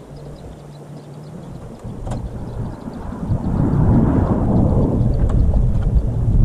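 Wind buffeting an outdoor camera microphone: a low, noisy rumble that grows loud about three seconds in.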